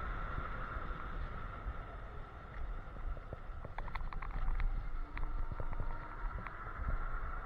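Electric scooter riding fast: wind rumbles on the microphone over a steady high whine, with scattered clicks and rattles from bumps in the road, most of them about four to five seconds in.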